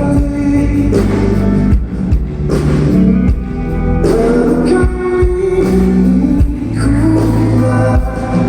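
Rock band playing with a singer: sustained sung notes over bass, guitar and keyboards, with drum hits.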